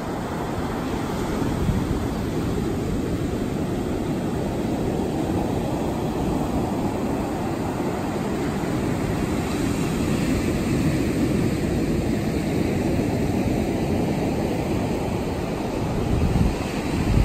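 North Atlantic surf breaking and washing up a black sand beach as a steady rush, with low wind rumble on the microphone that swells a little near the end.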